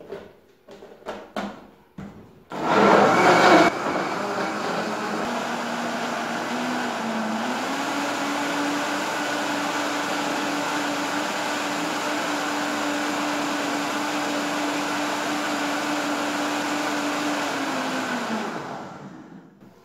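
Countertop blender blending chunks of onion, lemon, garlic, ginger, apple and mint in water: a few clicks as the lid goes on, a loud rough burst as the motor starts about two and a half seconds in, then a steady motor hum whose pitch steps up a little about seven seconds in, winding down near the end.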